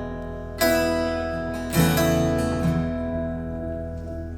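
Live band music: acoustic guitar chords strummed a few times and left to ring and fade, over a steady low bass note.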